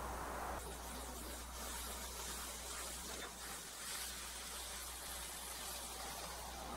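Gas torch flame hissing steadily while it heats a silver-solder joint on a small steel broadhead, the hiss growing stronger about half a second in. A low steady hum runs underneath.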